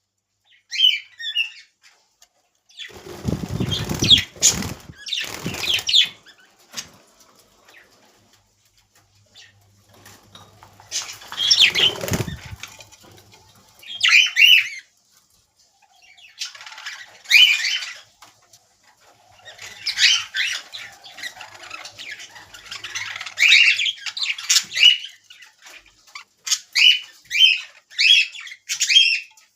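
Budgerigars fluttering their wings in a cage, in irregular bursts, with short high chirps that come more often toward the end.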